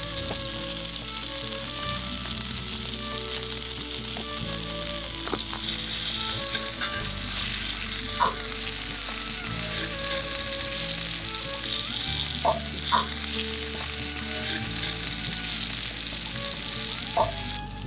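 Masala-coated fish steaks shallow-frying in oil on a flat iron tawa, with a steady sizzle. A few sharp clicks come as the spoon and spatula touch the pan.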